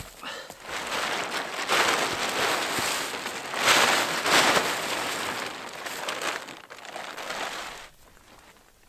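Tarp rustling and crinkling, a rushing noise that swells twice and stops abruptly near the end.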